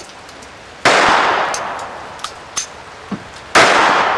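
Two handgun shots about two and a half seconds apart, each followed by a long echo that dies away slowly. A few faint clicks come between them.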